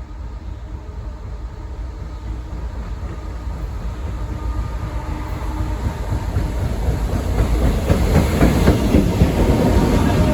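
Freight train led by an EMD SD38 diesel locomotive approaching, its engine and wheels growing steadily louder, with rapid clicking of wheels over the rails building in the last few seconds.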